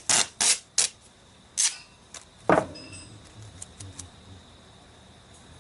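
A quick run of sharp clicks and knocks, another click a moment later, and one louder knock about two and a half seconds in, followed by a few faint ticks.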